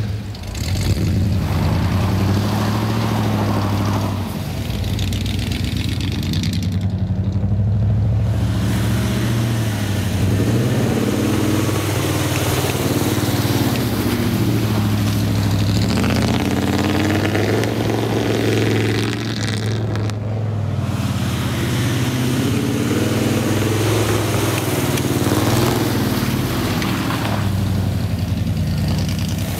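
1985 Ford Bronco's engine revving up and easing off again and again as the truck drives through snow, its pitch rising and falling several times.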